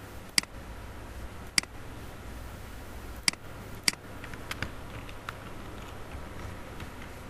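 Computer mouse clicking: four sharp clicks, the first two a little over a second apart and the next two close together, followed by a few fainter ticks, over a steady low background hiss.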